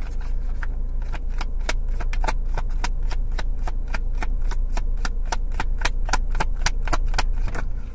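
Tarot cards being shuffled by hand, a quick, regular patter of card clicks at about five a second that starts about a second in and stops just before the end. A steady low hum runs underneath.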